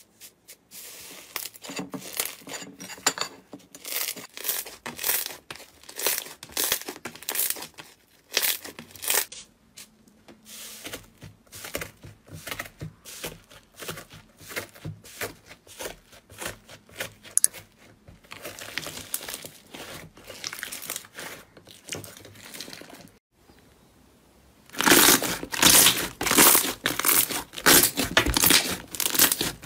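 Hands squishing, poking and pulling slime, giving sticky crackles and tearing sounds in quick, irregular bursts. After a short quiet break about two-thirds through, a louder, denser crackling comes as a thick slime is stretched and torn apart.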